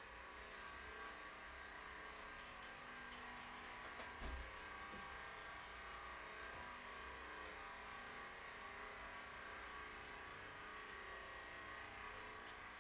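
Faint steady electronic buzzing drone with hiss and several held tones, and a single low thump about four seconds in.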